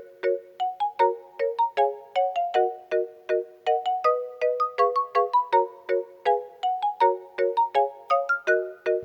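Light instrumental music: a cheerful, plinking melody of short, quickly fading notes, several a second, over repeating chords, in a ringtone-like style.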